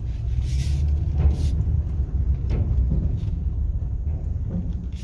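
Low, steady rumble of a truck's engine and rolling noise heard inside the cab as it creeps forward slowly. Two brief hisses come about half a second and a second and a half in.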